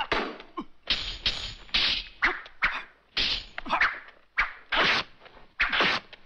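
Martial-arts film fight sound effects: a rapid run of sharp hits and whooshing swings, about two a second, some hits leaving a short ringing tone.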